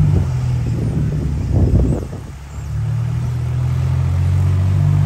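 Diesel engines of off-road 4x4s and a farm tractor running steadily with a low hum. The hum drops away briefly a little after two seconds in, then returns.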